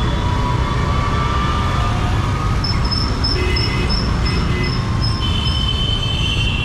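Steady street traffic rumble. In the middle, a high beep repeats about three times a second for roughly three seconds, with other thin tones coming and going over the noise.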